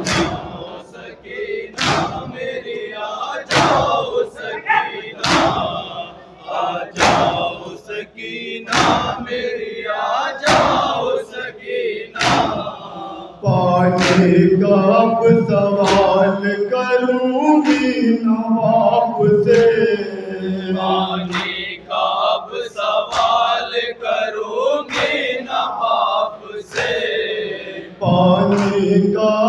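Men chanting a noha, an Urdu mourning lament, led by a male reciter on a microphone, while the group beats their chests in unison (matam): one sharp slap a little under every two seconds. About halfway through, the singing grows fuller and runs on without a break between the slaps.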